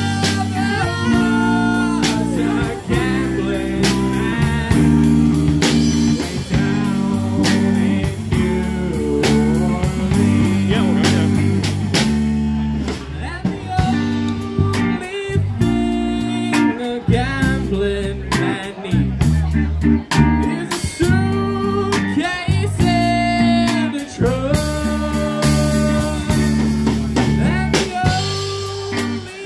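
Live band playing: a singer over saxophone, electric guitar, bass and keyboard, with a steady drum beat.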